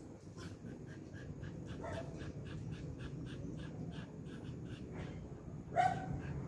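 Jack Russell Terrier panting fast, about four breaths a second, with a faint whimper about two seconds in and a louder short whine near the end.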